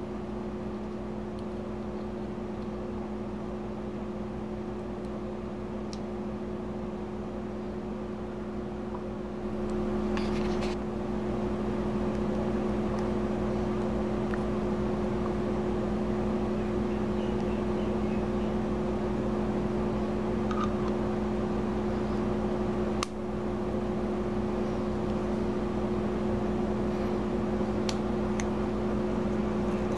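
Steady electrical hum with a fan-like whir, stepping up a little in loudness about a third of the way through. A few faint clicks come from small metal grenade parts being handled.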